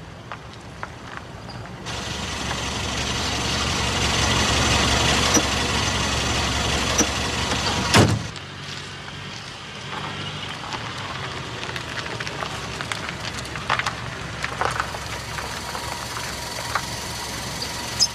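Renault 4 car driving on a dirt road: its engine and tyre noise swell for several seconds, cut by a single sharp thump about eight seconds in. After that the car is quieter, with scattered small clicks.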